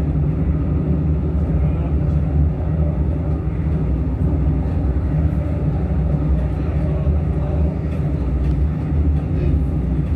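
Passenger train running at speed, heard from inside the carriage: a steady low rumble and drone of the train on the track.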